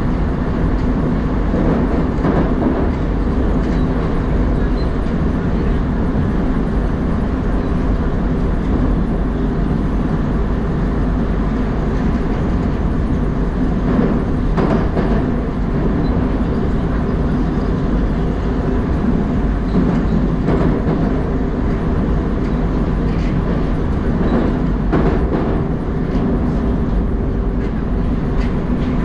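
Interior noise of an 81-760/761 'Oka' metro car running through a tunnel: a steady loud rumble of wheels on rails, with a few clacks over rail joints.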